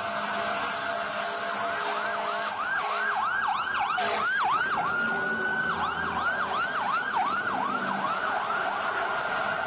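Emergency vehicle siren sounding a fast yelp, about three sweeps a second, that switches briefly to one steady held tone about five seconds in before yelping again. Constant street noise underneath.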